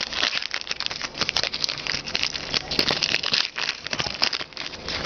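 A 2010 Topps Football hobby pack's wrapper being torn open and crinkled by hand, a dense run of crackles and rustles.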